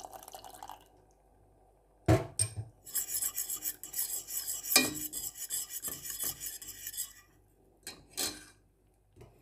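Metal spoon stirring and scraping in a stainless steel pot of sauce, mixing in cornstarch slurry to thicken it. There is a single knock about two seconds in, then several seconds of repeated scraping strokes with one sharp clink partway through, and a few last strokes near the end.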